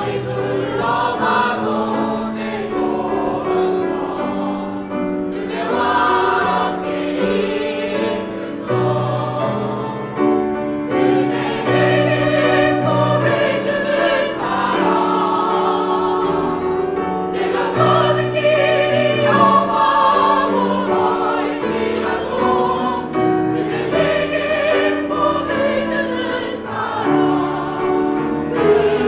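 A choir singing a song in unison and parts over instrumental accompaniment, with long held notes.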